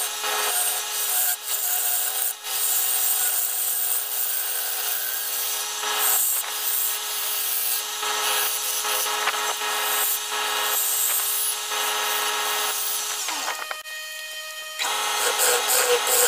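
A wood lathe turning a crotch-wood bowl blank while a bowl gouge cuts it: a continuous rasping scrape over the steady hum of the lathe motor. About two thirds of the way through, the motor note falls away and it goes quieter for about a second, then the cutting starts again, louder.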